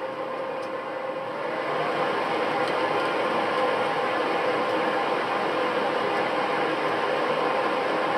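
Lottery ball draw machine starting up and running: the mechanical noise comes up to speed over the first two seconds, with a faint rising whine, then runs steadily as the 49 numbered balls are mixed for the draw.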